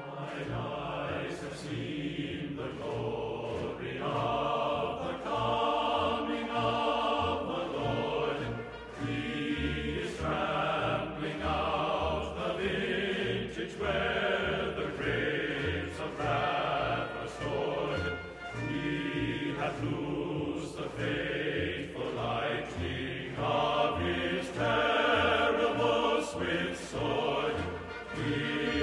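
Background music: choir-like sustained voices over a steady low beat.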